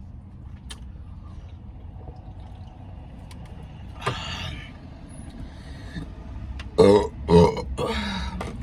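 A woman burping, once about four seconds in and then several loud burps in quick succession near the end, over a low steady hum.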